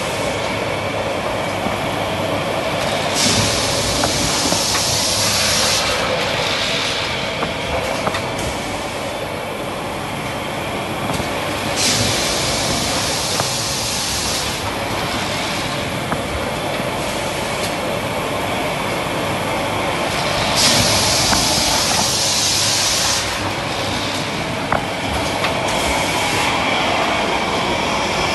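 High-speed automatic kitchen towel roll bundle packing machine running: a steady mechanical din of conveyors and rollers, with several stretches of hiss lasting a few seconds each and a few light clicks.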